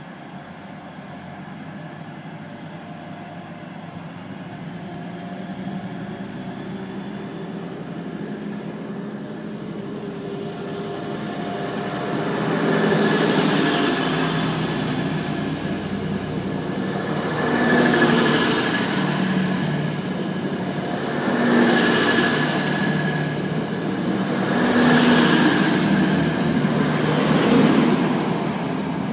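First Hull Trains Class 180 Adelante diesel multiple unit pulling away under power, its underfloor Cummins diesel engines growing steadily louder. The sound swells in five waves as the five coaches pass, the waves coming closer together as the train gathers speed.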